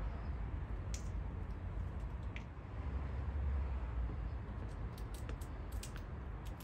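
Light, sharp clicks and taps, typical of a red squirrel scrabbling and nibbling at a window ledge, coming in a quick cluster near the end over a low steady rumble.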